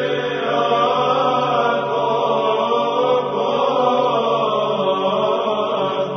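Orthodox church chant: voices singing long held notes over a steady low drone.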